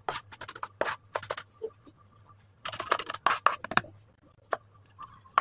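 Knife chopping red onion on a wooden cutting board: irregular sharp knocks of the blade on the board, with a quick run of strokes around the middle and a few single taps near the end.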